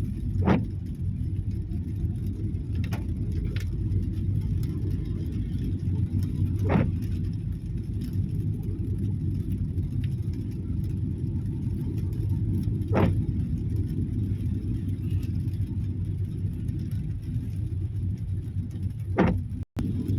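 A car driving on rain-wet roads: a steady low rumble of tyres and engine, with a brief sharp tick about every six seconds.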